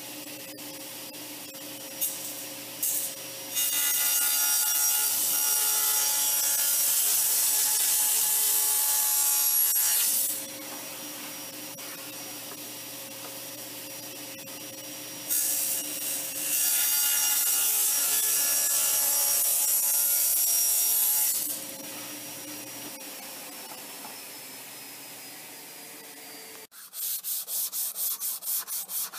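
Table saw running with its motor tone steady, making two long cuts through a hardwood board, each lasting about six seconds. The saw is then switched off and winds down, its pitch falling. Near the end the sound changes to the board being rubbed by hand in quick back-and-forth strokes, about three a second.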